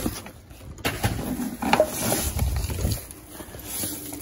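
Plastic bags and discarded items in a dumpster rustling and knocking as a hand rummages through them, busiest in the middle of the stretch.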